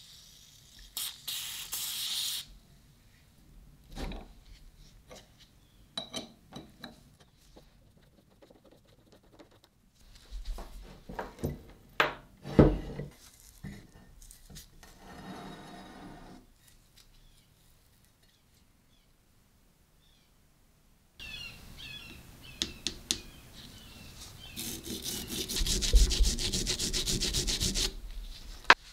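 Hand work on a rusty cast-iron vise: a short aerosol spray hiss at the start, scattered metal knocks and clanks with the loudest about twelve seconds in, then several seconds of fast, even rubbing strokes on the metal body that build near the end.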